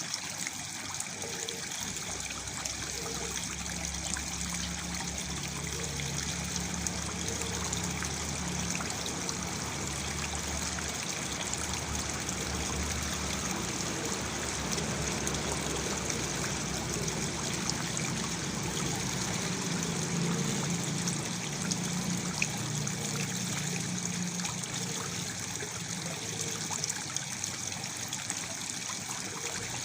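Waterfall splashing and trickling steadily into a pool, a continuous even rush of water.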